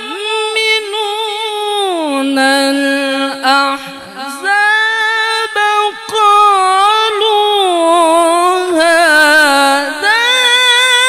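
A male qari reciting the Quran in the melodic, drawn-out tilawah style, holding long ornamented notes in a high voice. About two seconds in the pitch slides down to a lower held note, climbs back up near the middle, and dips and rises again near the end.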